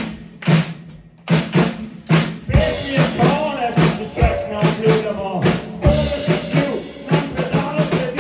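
Live rock band playing through amplifiers: hits on a Pearl drum kit with bass drum and snare, over electric bass and electric guitar. The band briefly drops back about a second in, then the drums come back in and the full band plays on.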